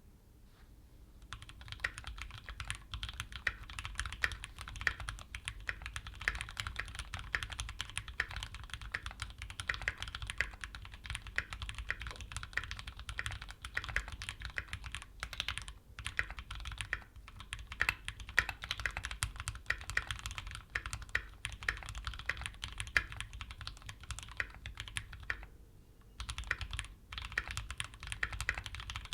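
Keychron Q5 aluminium mechanical keyboard with Gateron G Pro Brown tactile switches being typed on, a fast continuous run of key clacks. It starts about a second in, with a brief pause about halfway and another near the end.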